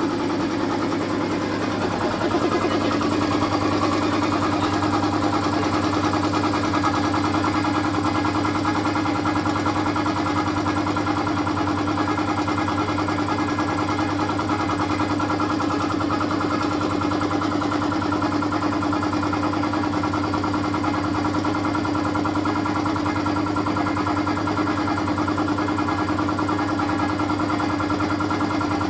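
Small 2 hp SDP air compressor running steadily under load, a constant motor hum with a dense mechanical rattle, a little louder from about two seconds in.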